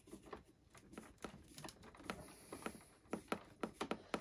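Hand screwdriver turning a screw into the tuner's sheet-metal cover: small, irregular metallic clicks, sparse at first and coming several a second near the end.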